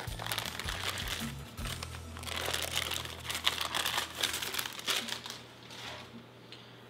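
Paper lining being peeled by hand off a freshly baked chocolate sponge cake, crinkling in irregular bursts that stop about five and a half seconds in.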